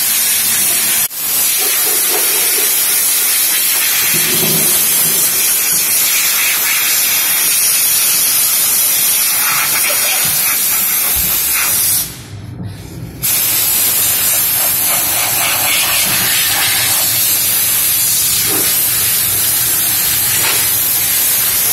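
Steam-cleaning gun blasting steam onto a car's bodywork in a steady, loud hiss. The hiss cuts out for a split second about a second in and for about a second around the middle, then resumes.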